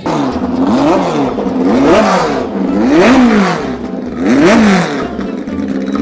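Modified Volkswagen Beetle drag car's engine revved about four times, each rev rising and falling in pitch about a second apart.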